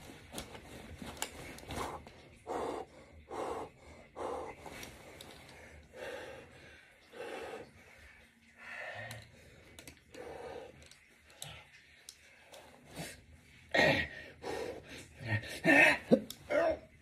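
A man breathing hard through weighted push-ups, with a sharp exhale or gasp on each rep, about one a second at first. The breaths grow louder near the end, the strain of a long set in a 20 lb weight vest.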